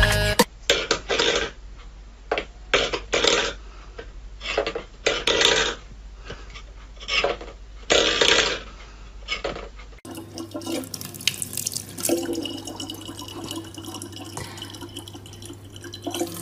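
Stainless steel bowls clattering and scraping on a wooden floor in a string of irregular sudden knocks. About ten seconds in, this gives way to a tap running a thin steady stream of water into a plastic bottle.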